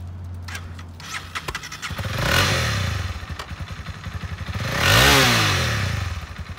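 2019 Honda CB300R's single-cylinder engine idling and revved twice, about two and five seconds in, each rev rising in pitch and dropping back to idle; the second rev is the louder.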